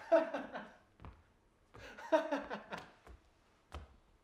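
A man laughing out loud in two bouts of rapid pulsed laughter, with a single sharp click near the end.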